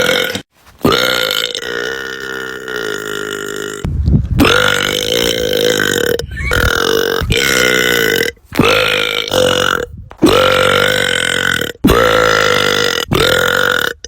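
About eight long burps from girls, one after another. Each is held for one to three seconds at a fairly steady pitch, and each cuts off abruptly before the next begins.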